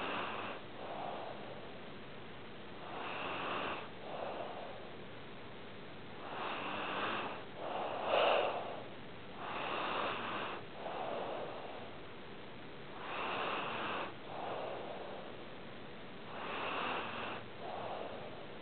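A sleeping pet snoring in slow, regular breaths, about one every three and a half seconds. Each breath comes in two parts, a longer, louder noisy draw and then a shorter, softer one. The loudest snore comes about eight seconds in.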